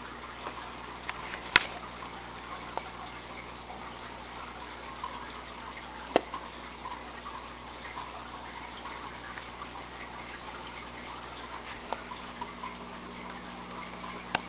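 Water running steadily in a 75-gallon aquarium with a low steady hum, the sound of its filter circulation. A few short sharp sounds cut through it, the loudest about a second and a half in and another about six seconds in.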